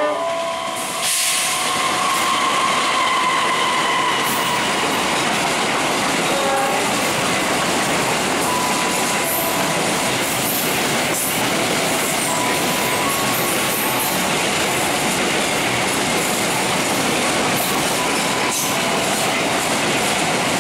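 Container freight train rolling past at close range, a steady rumble of steel wheels on rail with occasional clacks and brief, thin wheel squeals.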